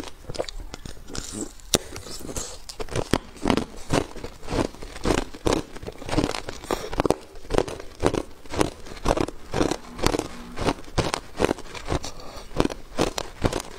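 Hard clear ice being bitten and crunched between the teeth: a steady run of sharp cracks and crunches, two or three a second.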